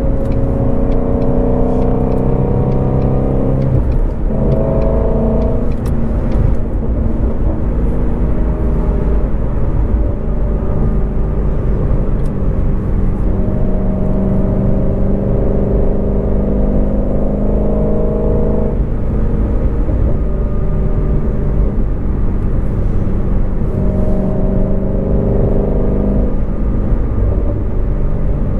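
2019 Shelby GT350R's 5.2-litre flat-plane-crank V8 running under way. The engine note climbs slowly, then drops back sharply several times, at about 4, 6, 19 and 27 seconds, like upshifts through the manual gearbox, over a steady low rumble.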